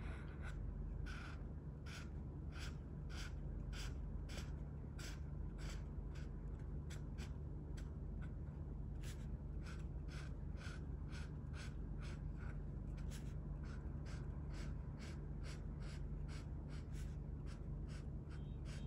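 Felt-tip marker scratching on sketchbook paper in quick repeated colouring strokes, about two to three a second, over a steady low hum.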